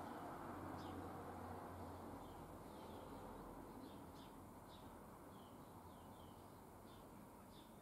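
Small birds chirping faintly now and then, a dozen or so short high chirps over a low, steady background hum.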